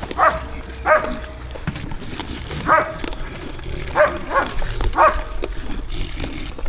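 A dog barking: five short barks, spaced irregularly about a second apart, over a low steady rumble.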